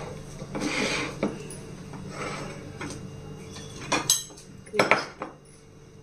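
Plates and utensils clattering as dishes are handled and set down, with a few sharp clinks about four to five seconds in.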